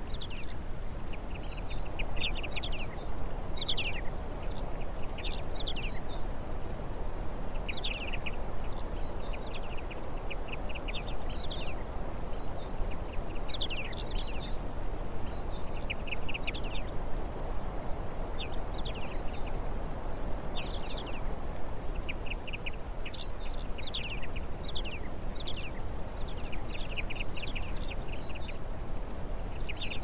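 Small songbirds calling: many short, high chirps and call notes in quick clusters, over a steady low background rush.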